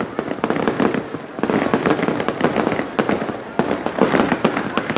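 Fireworks display going off in a rapid, continuous barrage of many overlapping bangs and crackles.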